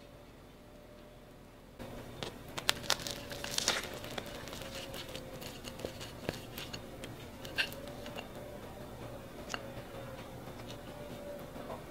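Freshly baked pastry being handled and torn, with crisp crackling and tearing and scattered sharp clicks that start about two seconds in.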